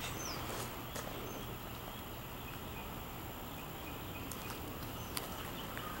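Outdoor ambience: a steady low rumble with faint bird chirps and a few soft footsteps on gravel and grass.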